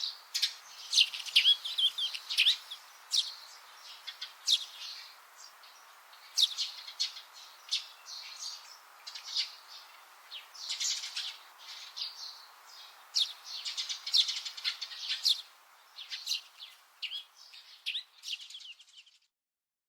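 Songbirds chirping and trilling, many short sharp calls over a faint hiss, cutting off abruptly near the end.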